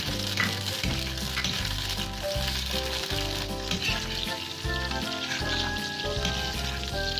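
Marinated pork and heart frying in a pan, with a steady sizzle as the meat renders its own fat. Background music with a bass line plays underneath.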